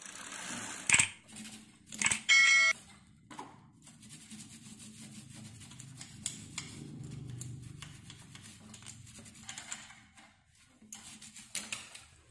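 Old toothbrush scrubbing a wet, dish-soaped bicycle chain and rear sprocket: faint, rapid scratchy strokes. About two seconds in, a short, loud electronic beeping tone.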